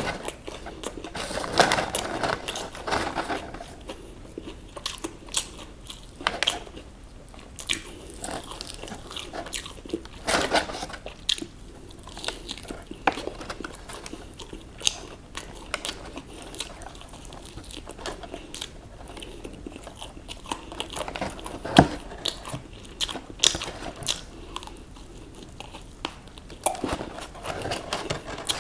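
Close-miked biting and chewing of crispy fried chicken: the breaded coating crunches and crackles in irregular bursts, with a few louder bites and quieter chewing between them.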